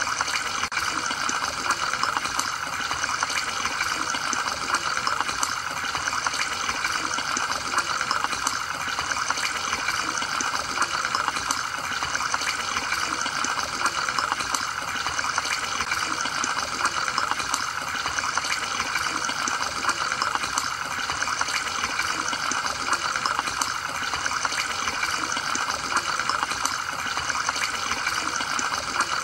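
Steady bubbling and splashing of aquarium water from an air-driven filter, with a constant stream of tiny bubble pops.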